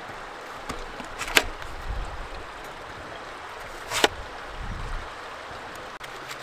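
A folding knife cutting through a peeled apple, its blade clicking sharply against a steel tray twice, about a second and a half in and again about four seconds in, over a steady hiss.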